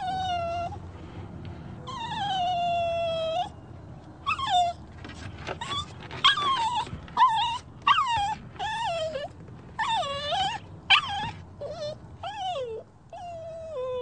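A dog whining: a long falling whine, then a quick run of short whimpers that rise and fall, and another long whine near the end.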